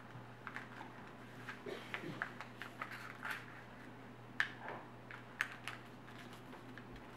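A sheet of printer paper being handled, folded and creased by hand: scattered crinkles, rustles and light taps at irregular intervals, over a steady low hum.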